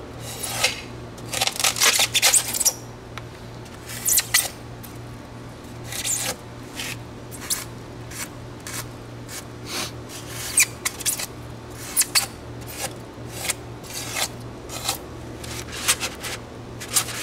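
Razor-knife blade slicing and scraping through a block of styrofoam, in many short, irregular strokes as the corners of a rounded foam nose section are carved away.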